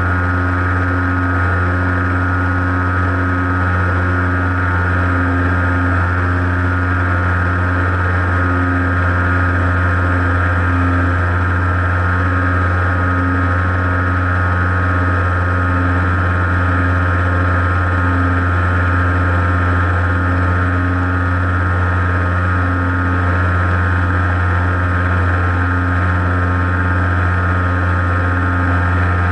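Motor and propeller of an FPV model airplane in flight, heard from on board: a loud, steady drone that holds one pitch throughout.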